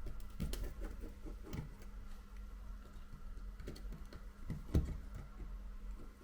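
Faint, scattered clicks and taps of small precision tools working on an iPhone 7's front camera bracket screws, with one louder tap near the end, over a steady low hum.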